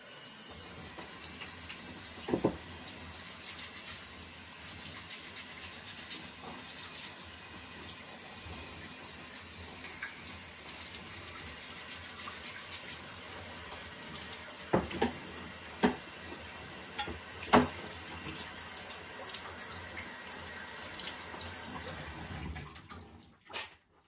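A sink tap running steadily as the washing machine's lint-clogged coin/lint trap filter is rinsed under it, with a few sharp knocks along the way; the water is shut off near the end.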